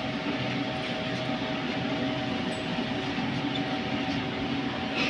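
Steady hum of a standing 81-722.1 metro car, its onboard equipment running while it waits at the platform with its doors open, with a faint steady tone over it. A short click near the end.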